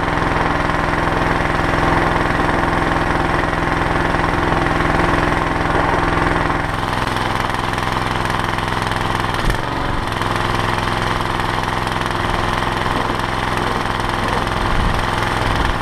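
Pressure washer running steadily while it sprays the boat hull: a constant motor note under the hiss of the high-pressure water jet. The note changes slightly about seven seconds in.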